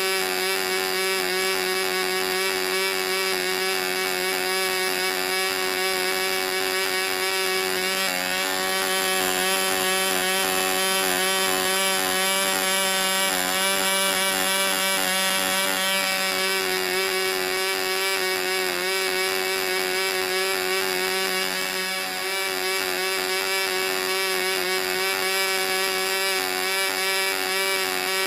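RO-JETT .51 two-stroke model glow engine running steadily under load on a 10x6 propeller, at around 11,000 rpm, its pitch edging up slightly at the very end. It is set rich at the break for break-in, cycling in and out.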